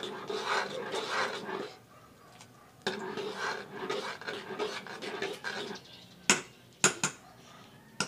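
A metal ladle stirring and scraping through thick champorado in a metal pot, in two stretches. Two sharp knocks of the ladle against the pot come a little after six seconds.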